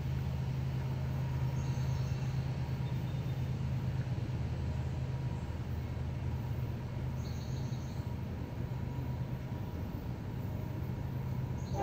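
Low, steady diesel engine rumble from an approaching freight train's locomotive, before it sounds its horn.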